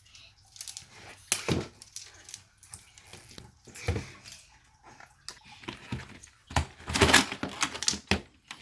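Plastic and paper packaging of a toy mystery egg crinkling, crackling and tearing as it is handled and opened, in irregular sharp crackles with the loudest flurry about seven seconds in.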